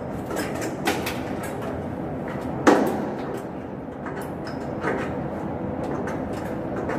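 Metal clinks and knocks from hand tools and bolts at the blower fan motor's mounting as it is fitted, with one sharp clank about two and a half seconds in. A steady machinery hum runs underneath.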